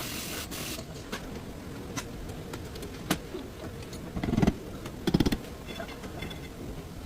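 Two short bursts of rapid mechanical rattling, a little under a second apart, with a few sharp clicks before them.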